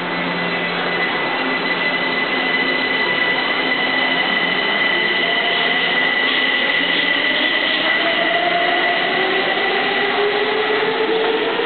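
Metro train pulling out of an underground station behind platform screen doors: steady running noise, with a motor whine that rises in pitch from about halfway through as the train gathers speed. A steady high tone is present and fades near the end.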